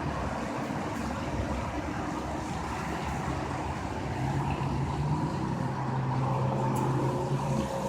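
A low, steady droning hum coming from the sky, with fainter higher steady tones over a rushing background. It grows a little louder about halfway through.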